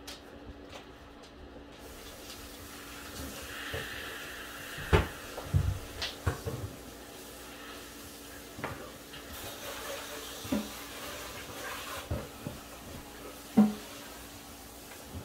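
Kitchen clatter: scattered knocks and clinks of dishes and utensils being handled, two of them louder, about five seconds in and near the end.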